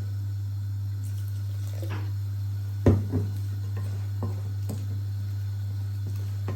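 Spiced pakora batter being mixed with water in a bowl: faint wet stirring with a few knocks against the bowl, the loudest about three seconds in, over a steady low hum.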